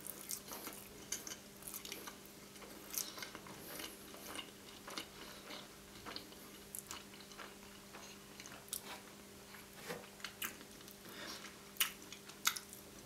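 Close-miked mouth chewing a large mouthful of dessert pizza, with soft wet smacks and clicks coming irregularly throughout.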